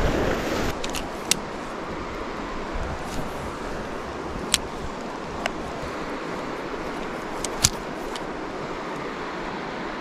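Steady rush of a river's flowing water, running high, with a few short sharp clicks scattered through it.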